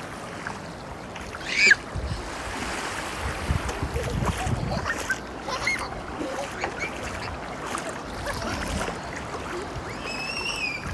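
Sea water sloshing and splashing in the shallows, with wind on the microphone. Two brief high-pitched cries cut through it: a loud one about a second and a half in and a falling one near the end.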